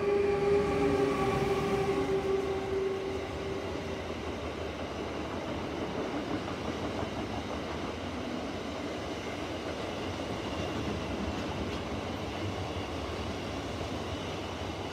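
DB Cargo class 189 electric locomotive passing close with a steady tone from the locomotive that fades over the first few seconds, giving way to the steady rolling rumble of a train of empty car-carrier wagons.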